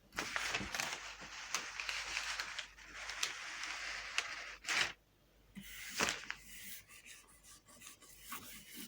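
Self-adhesive decorative film rustling and crackling as it is handled and laid on, with scattered small ticks. A short sharp rip of the film about five seconds in and another about a second later, then quieter rubbing.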